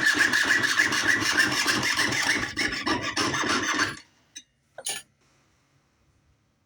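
Jeweler's saw cutting sheet metal in quick, rasping back-and-forth strokes that stop abruptly about four seconds in. Two small clicks follow, then near silence.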